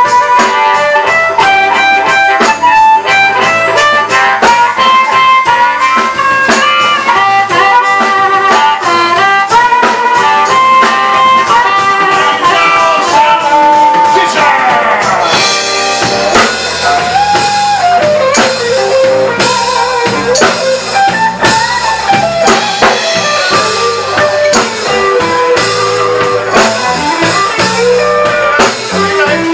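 Live blues-rock band playing an instrumental passage: a lead line over electric guitar and a drum kit. About halfway through the lead slides down and the cymbals get busier.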